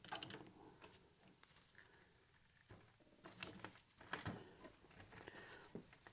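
Faint, scattered clicks and light knocks, the sharpest just after the start and about a second in: small handling sounds as the steel billet pieces are set and tightened in a clamp.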